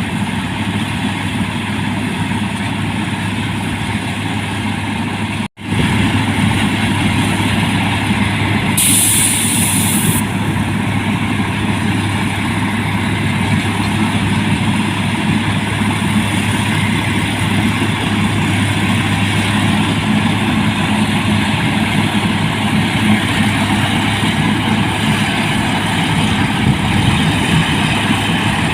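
Rice combine harvester's engine running steadily and loud. There is a momentary break about five seconds in and a short high hiss around nine seconds in.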